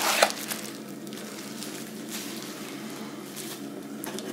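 Bubble wrap and plastic packaging rustling as they are handled in a cardboard box: a brief loud crinkle at the start, then a few faint, scattered rustles.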